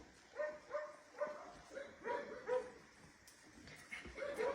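Puppies whimpering: a string of short, high yelping cries, about two a second, with a pause in the middle before they start again.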